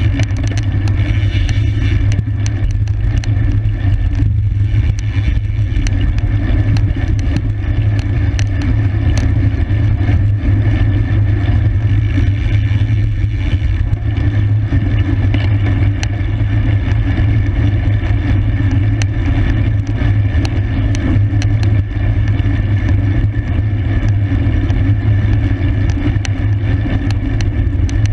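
Steady wind rush and road rumble on the microphone of a camera riding with a bicycle race, heavy and low, dotted with small clicks and rattles.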